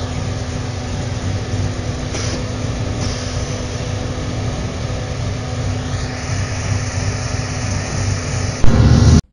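Supercharged 454 cubic-inch LSX V8 in a Chevrolet SSR idling with a choppy low rumble, then revved hard near the end.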